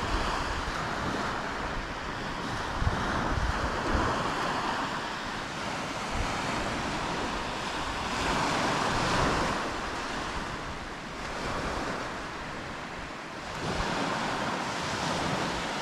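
Small waves breaking and washing up a pebbly shore, swelling louder twice, about halfway through and near the end, with wind rumbling on the microphone.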